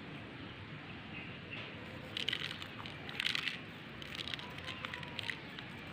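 Coarse salt grains crunching and pattering as a handful is sprinkled and rubbed over raw yellowtail scad in a plastic tub. The irregular gritty crackles start about two seconds in.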